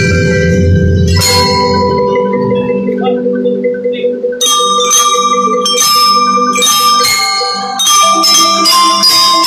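Bell lyres (metal-bar glockenspiels) of a drum and lyre band playing a melody, struck with mallets in ringing notes. The playing grows busier and louder about halfway through.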